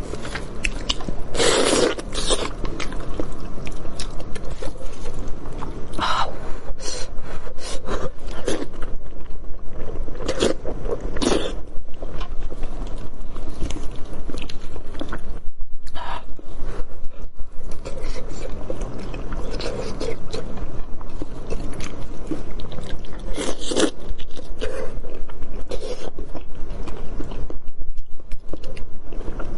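Braised pork hock being torn apart by hand in plastic gloves, with close-miked chewing. The sounds come as an irregular string of short tearing and mouth noises.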